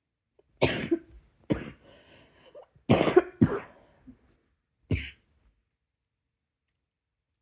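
A person coughing: five short coughs spread over about five seconds, two of them close together about three seconds in, with faint breathing between them.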